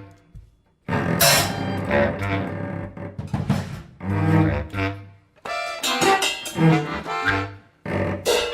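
Instrumental music with low bowed strings and brass, in short segments that cut off abruptly and restart after brief silences.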